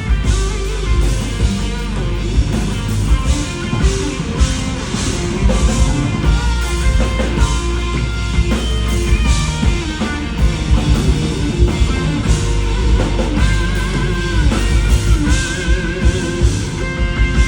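Live rock band playing loudly through an instrumental section, with drum kit hits and electric guitar.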